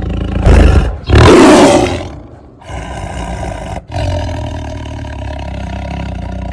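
Wild cat roaring and growling: two loud roars about half a second and a second in, then a long, lower, steadier growl broken briefly twice.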